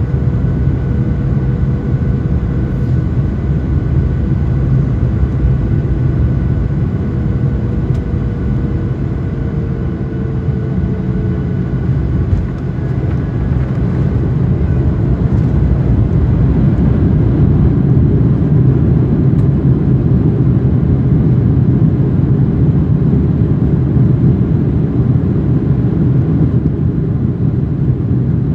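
Cabin noise over the wing of a Boeing 737-900 landing: the CFM56-7B engines' steady whine falls in pitch as power comes back, the aircraft touches down about twelve seconds in, and a heavier low rumble of reverse thrust and rollout builds, then eases near the end.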